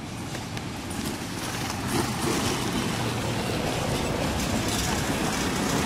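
Steady, noisy rumble that grows louder, with the main rise about two seconds in.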